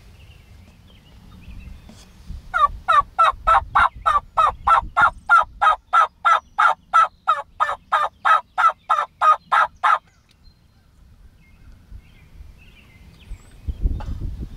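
Turkey yelping: a long, even run of about 25 loud, close yelps, some three a second for about seven seconds, then stopping abruptly.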